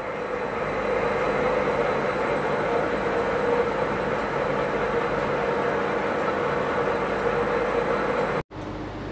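Spindle of a VMC (vertical milling center) spinning at steady speed: a steady mechanical whir with a hum and a thin high whine, cutting off suddenly near the end.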